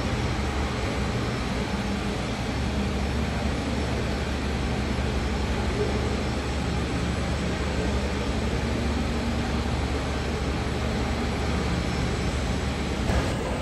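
Jet airliner engines running, a steady rush of noise with a constant low rumble; a short knock sounds near the end.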